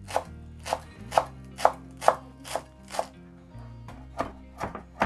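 Chef's knife chopping fresh parsley and cilantro on a wooden cutting board, a steady run of sharp strokes about twice a second, with faint background music underneath.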